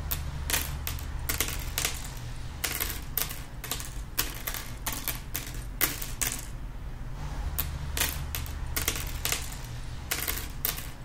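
Typing: an irregular run of sharp key clicks, a few a second, pausing briefly a little past halfway, over a low steady hum.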